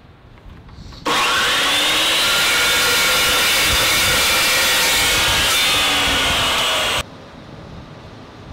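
Abrasive metal chop saw switched on, its motor whine climbing as it spins up, then running loud and steady before cutting off abruptly.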